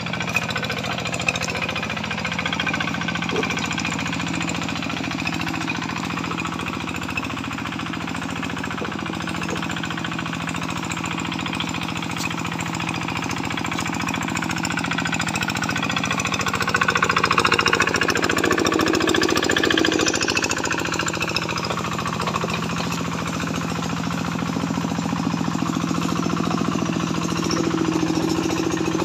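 Homemade hand tractor's single-cylinder diesel engine running with a rapid, even beat while hauling a load of lumber over rough, muddy ground. It gets louder for a few seconds about halfway through as it works harder.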